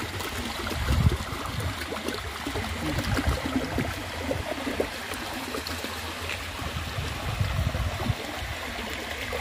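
Water running with force and splashing while goat intestines are rinsed by hand under the flow, with irregular low thumps from the handling.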